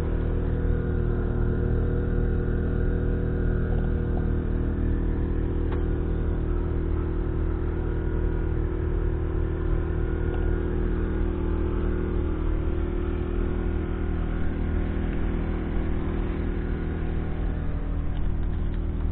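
Valtra T174 Direct tractor's 7.4-litre six-cylinder diesel engine idling steadily.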